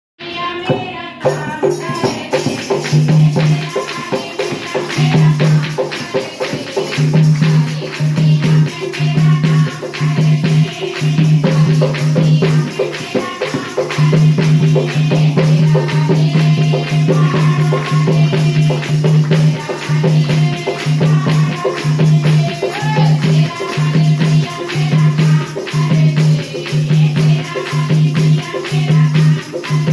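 Devotional bhajan music: a wavering melody over a low beat about once a second, with shaker-like percussion.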